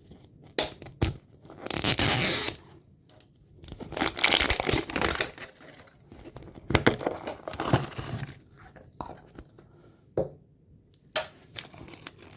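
Wrapping on a Zuru A-Lota Axolotls surprise ball being torn open and crinkled in three longer rustling rips, then two short sharp clicks near the end.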